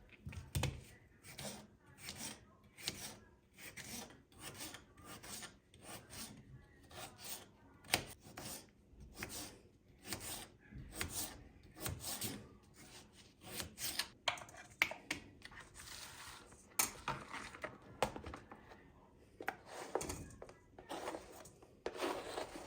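Repeated rubbing strokes, about two a second, that become slower and irregular after about fourteen seconds.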